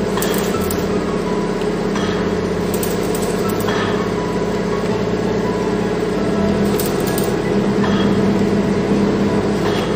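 A steady, loud machine hum, with a few short scrapes and clicks of a hand spreader working body filler onto the tanker's metal body.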